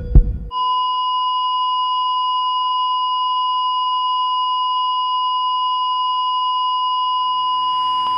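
A steady, unbroken electronic sine-wave tone, a single high beep held for several seconds, with two heavy low thumps just as it begins. Near the end, low instrument notes start to come in underneath it.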